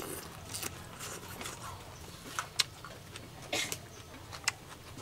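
A person eating soup: quiet mouth and chewing sounds, with two sharp clicks of a metal spoon against the bowl, the louder about halfway through and another near the end.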